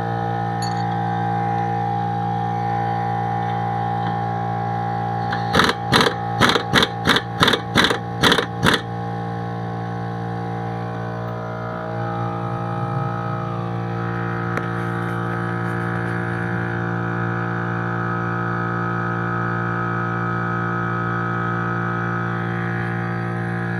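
Background music of steady held tones, with a quick run of about nine sharp hits, about three a second, some five seconds in.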